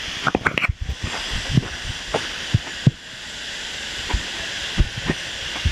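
Steady rush of a waterfall, with scattered knocks and thumps close by, most of them in the first second.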